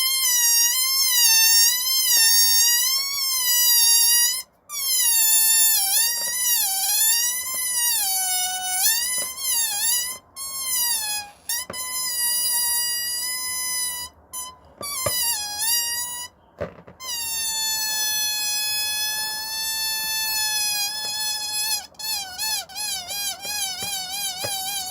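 Rubber balloon squealing as air is let out slowly through its tightly stretched neck: a high, wavering squeal that dips and rises in pitch, broken by several short pauses. Near the end the squeal turns into a fast fluttering warble.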